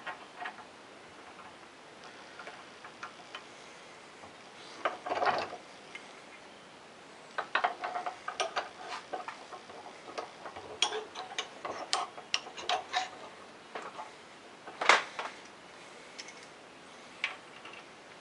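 Scattered metallic clicks and clinks of a tap wrench and thread tap being handled on and against a metal manifold block during hand tapping, with one louder knock near the end.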